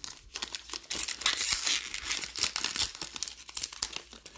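Crinkly wrapper of a Topps baseball card pack being crumpled and torn open by hand: a run of crackles, densest about a second in.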